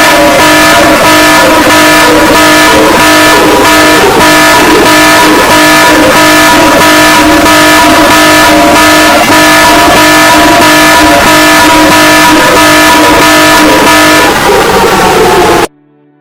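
Emergency alert alarm: a very loud, steady chord of several held tones with a rough hiss over it, cutting off suddenly near the end.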